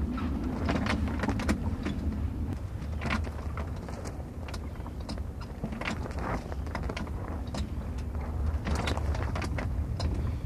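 Water splashing and slapping against a sailboat's hull in a string of short bursts, over a steady low rumble.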